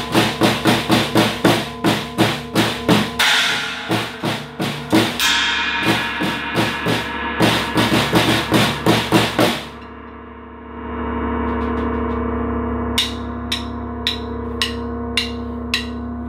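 Snare drum played with drumsticks: quick, even strokes, about four a second, over a steady metallic ringing. The strokes stop about ten seconds in, leaving a low sustained hum that swells, with light taps about twice a second near the end.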